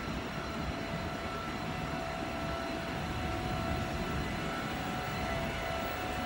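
SL X60B electric commuter train (Alstom Coradia Nordic) pulling out and gathering speed, a steady rumble of wheels and running gear with a steady whine of several tones from its electric drive.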